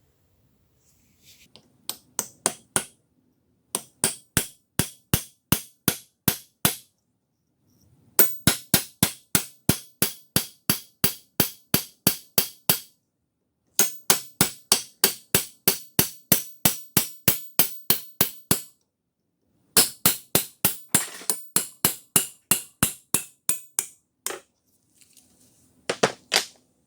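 Hammer blows on metal, ringing with each strike, at a steady three or four blows a second in runs of several seconds broken by short pauses.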